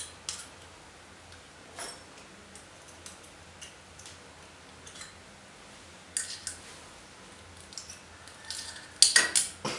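Small metal parts being handled and fitted on a motorcycle's stainless exhaust muffler: sparse light clicks and taps, with a louder burst of clattering about nine seconds in.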